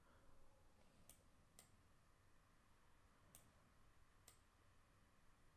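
Near silence with four faint computer mouse clicks: two close together about a second in, then two more about a second apart further on.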